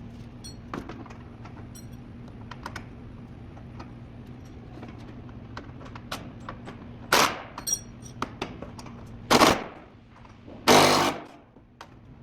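Impact wrench fired in three short rattling bursts on the bumper bolts, the last the longest, with light clicks and clinks of tools and hardware between them.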